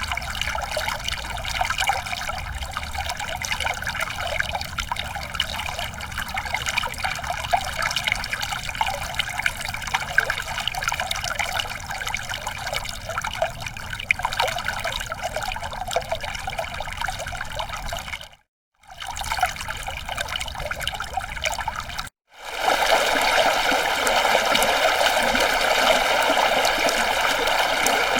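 Stream water trickling and flowing steadily. The sound cuts out briefly twice, and after the second break, about 22 seconds in, the flow is louder and fuller.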